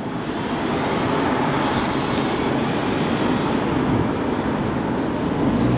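Steady rushing wind and road noise on the microphone of a rider on the move, from riding a bike along the road.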